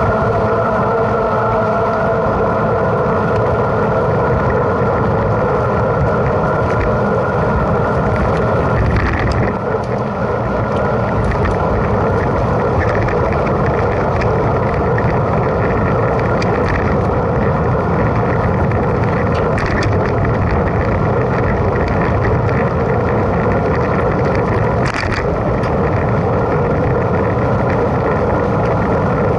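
Steady wind and rolling noise on a camera riding along on a mountain bike, with a few short rattles scattered through.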